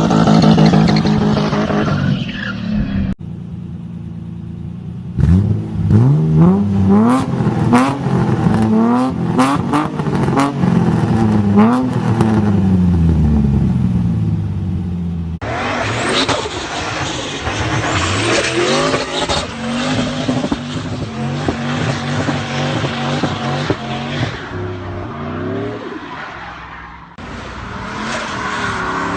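A string of short clips of BMW E30 3 Series cars' engines, cut abruptly one after another: an engine running loud, then a quieter stretch, then a run of quick rising and falling rev blips, then a car running at speed with a steady engine note and road noise.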